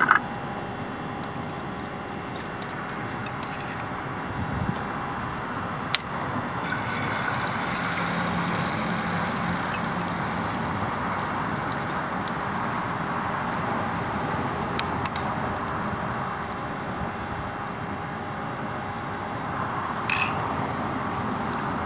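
Hot oil sizzling in a frying pan over a biomass gasifier burner, with a steady rushing sound. About six and a half seconds in the sizzle grows louder and hissier as beaten eggs go into the pan and fry. A few sharp clinks come along the way.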